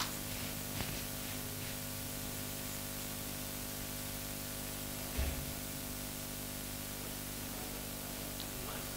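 Room tone of a lecture room: a steady hiss with a constant electrical hum. About five seconds in comes one soft low thump.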